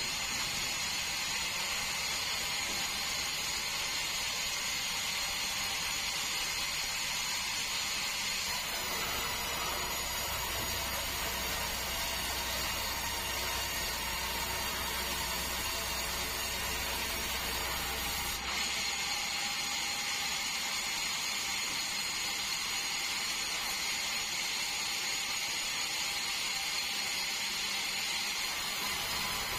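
Sawmill bandsaw running steadily, a continuous mechanical noise with several steady tones. A deeper hum joins it about nine seconds in and cuts off suddenly a little past halfway.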